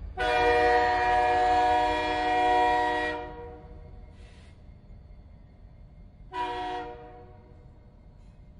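Train horn sounding a long blast of about three seconds, then a short blast about three seconds later, over a low rumble of the train that fades away.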